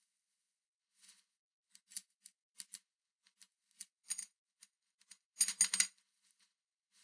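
Short, irregular clicks and scrapes from gloved fingers handling and fitting small metal parts on the polished clipper head. The loudest is a quick cluster of clicks about five and a half seconds in.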